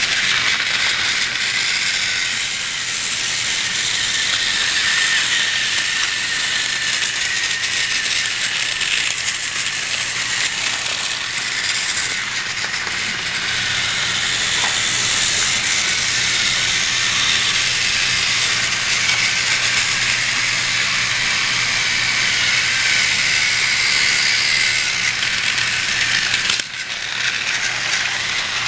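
Battery-operated Thomas & Friends TrackMaster toy engine running on plastic track, its small motor and gearbox making a steady, fast, ratcheting rattle. The sound dips briefly near the end.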